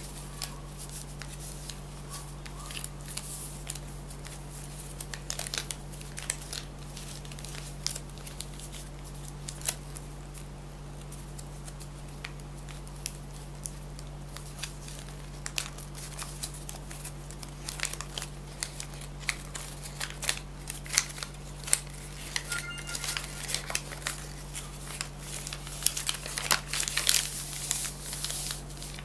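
Paper being handled, folded and creased by hand, with crinkling and many short sharp crackles that come thicker and louder near the end. A steady low hum runs underneath.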